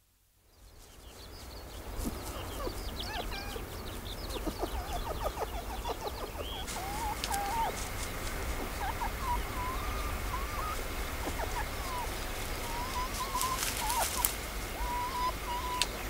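Female red fox calling to her cubs with soft, quiet whining sounds: many short squeaky notes that rise and fall, some in quick runs. The sound fades in over the first couple of seconds.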